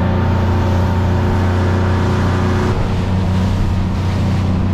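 Yamaha 250 outboard motor running steadily at cruising speed, with water and spray rushing along the hull. The engine note shifts slightly about three seconds in.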